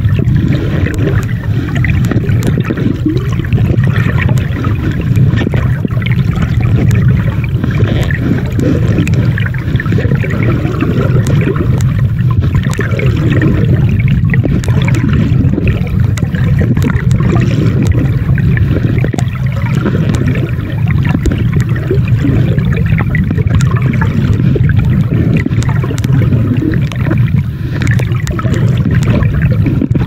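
Steady, muffled rushing of water, as picked up by a camera held underwater, with many small clicks and crackles scattered through it.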